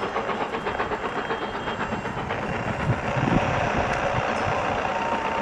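Steam train hauled by an AC16 class locomotive running: a steady rush of noise with light clicking, louder from about three seconds in.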